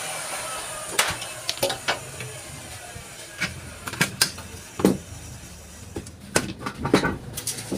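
Light clicks and knocks of aluminium frame profiles and small screws being handled on a workbench, about a dozen scattered impacts with short pauses between them.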